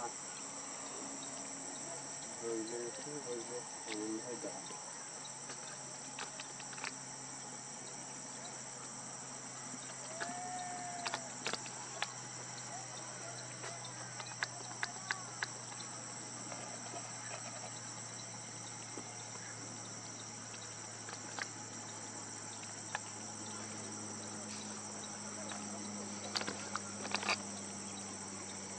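Steady high-pitched chorus of insects, crickets or similar, chirring without a break, with a handful of sharp clicks scattered through it, some in quick clusters.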